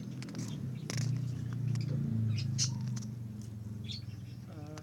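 Newborn Shih Tzu x Maltese puppy squeaking and whimpering while its umbilical cord is tied. A cry begins near the end. Under it runs a low pulsing rumble, loudest in the middle.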